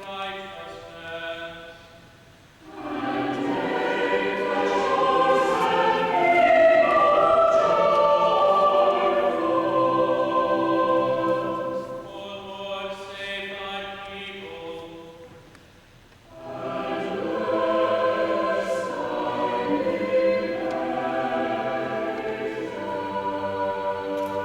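A church choir singing in harmony in two long phrases, one from about three seconds in and another from about sixteen seconds in, each after a quieter sung line.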